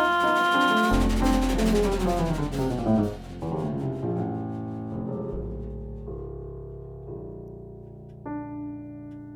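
Jazz ballad played on acoustic piano and double bass: a falling run of piano notes about a second in over a deep held bass note, then chords that slowly die away, with a new piano chord struck near the end.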